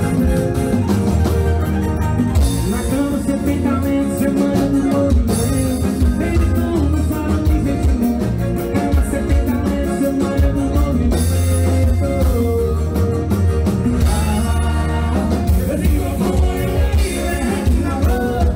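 A live band playing loud, upbeat music with a male lead singer, electric bass and drum kit.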